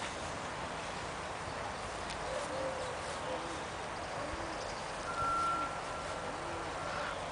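Outdoor ambience with a steady hiss, through which a series of soft, low hooting calls repeats about once a second. A steady higher tone sounds for about two seconds past the middle, loudest at its start.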